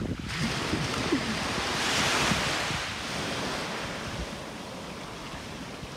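Small sea waves washing onto a sandy beach, one swelling wash loudest about two seconds in, with wind buffeting the microphone.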